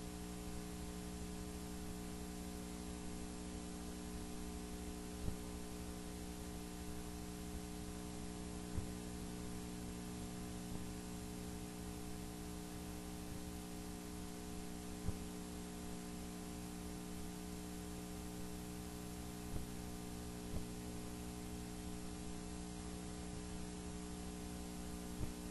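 Steady electrical mains hum with a hiss on the sewer inspection camera's recording, with a handful of faint single clicks spread out.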